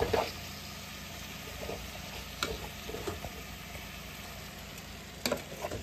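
Steady sizzle of steak and onions frying in butter in a skillet, with a few light clicks about two and a half seconds in and near the end.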